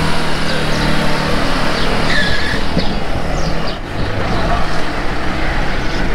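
A vehicle's engine running on the move under loud road and wind noise, with a few short high chirps about two to three and a half seconds in.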